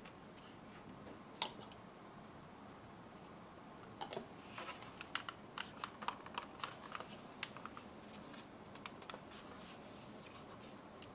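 Faint clicks and taps of hands handling and pressing together a plastic model aircraft fuselage, with a quick cluster of clicks from about four to eight seconds in.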